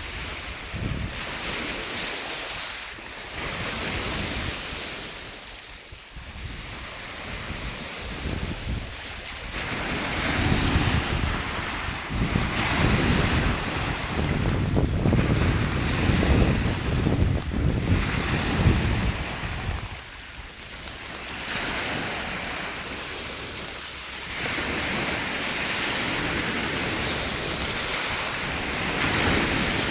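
Lake Baikal waves washing in and receding every few seconds, with wind buffeting the microphone, strongest through the middle of the stretch.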